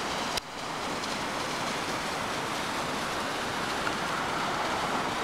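Steady rushing of water from an ice-covered waterfall, an even hiss with a brief dip and a click about half a second in.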